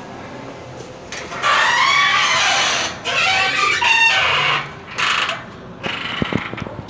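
An animal's loud calling: one long call with a brief break in it, starting about a second and a half in, then a short call near five seconds.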